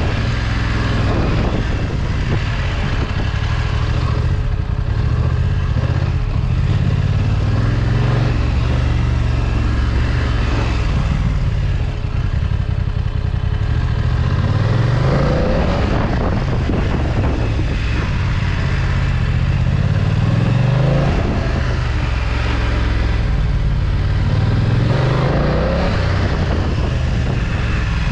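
BMW F900XR's parallel-twin engine running, its pitch rising several times as the revs climb under acceleration.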